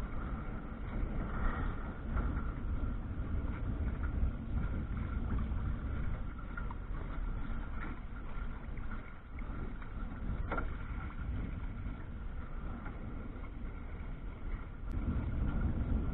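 Wind rushing over the microphone and water washing against the hull of a sailing canoe underway, a steady low rumble that rises a little near the end.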